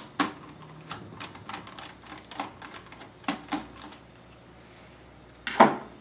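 Small screwdriver working a screw out of a laptop's motherboard, with scattered light clicks and taps, and a louder clack near the end.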